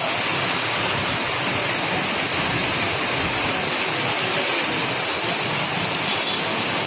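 Heavy rain falling steadily, an even hiss of water with no breaks.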